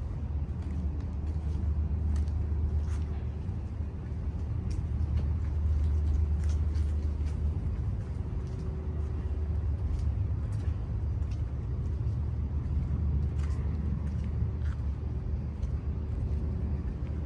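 Outdoor city ambience: a steady low rumble of the kind distant traffic makes, with faint sharp ticks scattered through it.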